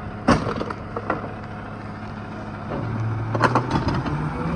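Rear-loader garbage truck running at idle while bulky furniture is thrown into its hopper: a loud knock about a third of a second in, a few lighter clatters after it, and another cluster of knocks about three and a half seconds in. The engine speeds up partway through, its hum rising in pitch.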